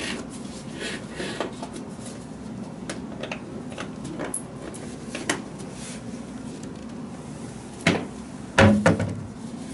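Light clicks and rustles as a disinfecting wipe is pulled from a plastic wipes canister. Near the end comes a knock, then a louder cluster of bangs, as the wooden cabinet door under the sink is opened and shut.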